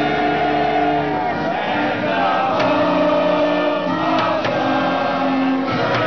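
A stadium crowd singing a national anthem along with music over the public address, in long held notes.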